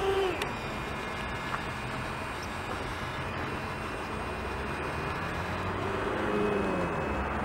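Model tracked loader's electric motor whining steadily and cutting off just after the start as the bucket finishes tipping. Then a steady rushing rumble of road traffic that grows louder toward the end as a vehicle approaches, with a faint whine that falls in pitch about six seconds in.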